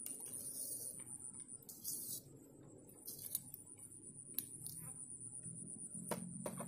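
Faint clicks and short rustles from hands handling fishing tackle and bait close to the microphone, over a steady thin high-pitched whine.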